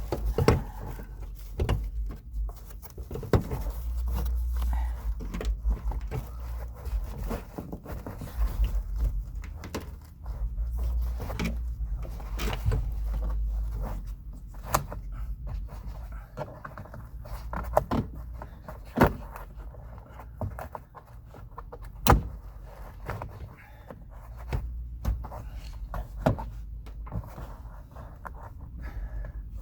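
Scattered knocks, clicks and thunks of hand work on a car door, over a steady low rumble, with a few sharper knocks standing out near the middle.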